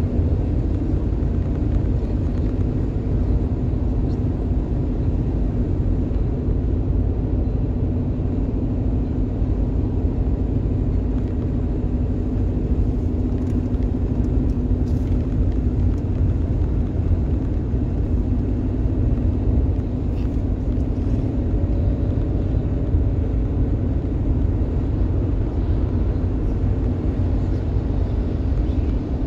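Steady low road rumble inside a car's cabin while it drives at highway speed.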